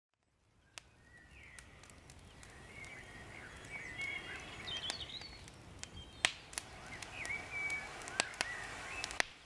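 Woodland songbirds chirping and singing, with scattered sharp cracks from a small campfire crackling. The sound fades in from silence over the first couple of seconds.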